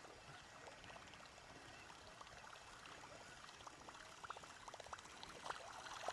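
Faint trickling and splashing of water, with light scattered ticks that come more often toward the end.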